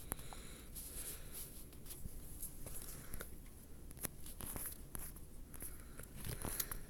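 Faint, irregular small clicks and rustles of a phone being handled and tapped.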